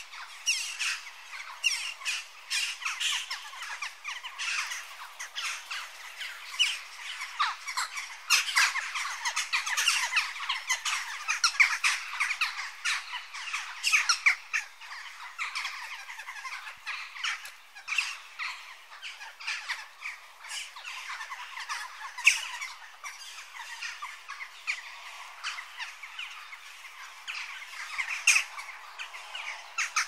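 Jackdaws calling: a steady, irregular stream of many short, sharp calls overlapping one another.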